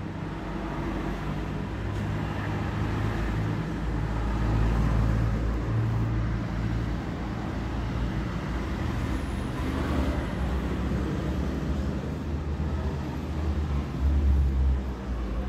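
Low, steady rumble of a motor vehicle running, swelling briefly about four seconds in and again near the end.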